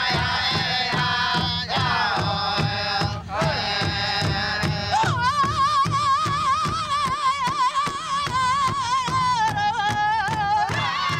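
First Nations drum group: several singers seated around a large hide drum, striking a steady, even beat while they sing. About halfway through, a high, wavering voice comes to the fore over the drumming.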